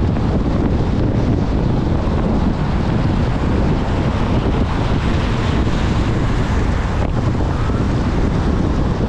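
Car driving on a wet road in rain: a steady rumble of tyre and wind noise, heaviest in the low end, with no breaks.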